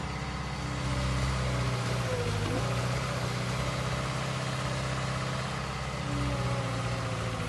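2007 JCB JS220LC tracked excavator's diesel engine running steadily, with small shifts in pitch about two seconds in and again near the end.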